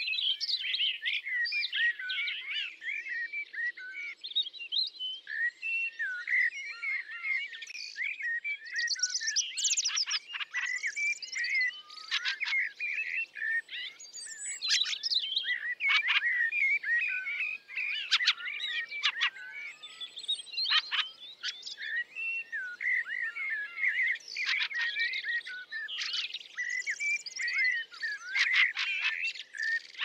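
Songbirds singing: a dense, continuous chorus of chirps and warbles, broken every few seconds by quick rattling trills.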